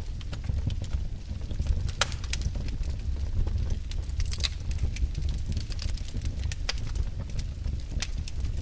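Wood fire burning in a fireplace, crackling and popping irregularly, with a steady low rumble underneath.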